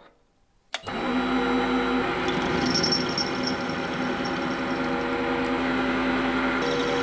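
Small metal lathe running with a steady motor hum and whine, turning a metal rod against an insert cutting tool. The sound starts abruptly about a second in after near quiet.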